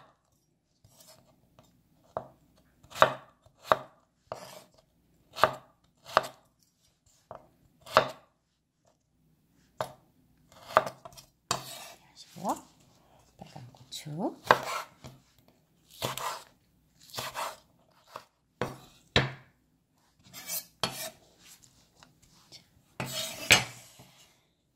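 Kitchen knife chopping green chili peppers on a wooden cutting board: separate sharp knocks, spaced irregularly at first and coming closer together in the second half, with a louder clatter near the end.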